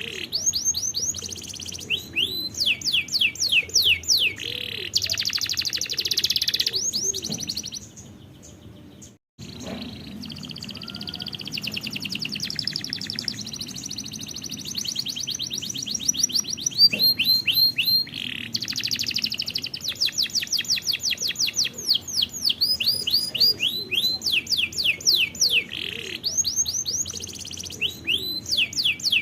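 Domestic canary song: fast trills of repeated whistled notes, each phrase a rapid string of the same syllable before switching to the next, with a short break about nine seconds in.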